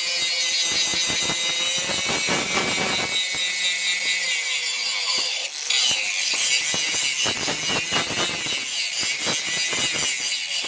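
Power tool cutting or grinding steel: a loud, steady hiss that breaks off briefly about halfway through and stops abruptly near the end.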